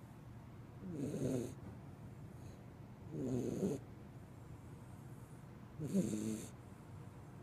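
Pembroke Welsh corgi puppy snoring in its sleep: three rattly snores about two and a half seconds apart, each with a soft hiss of breath.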